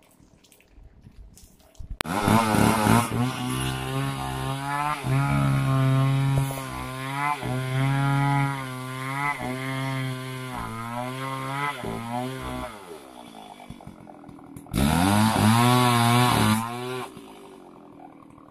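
Two-stroke chainsaw coming in about two seconds in and running at high revs, its pitch dipping and recovering again and again as it cuts through a felled trunk. It eases off around twelve seconds, then gives a second short burst of revving near the end before dropping back.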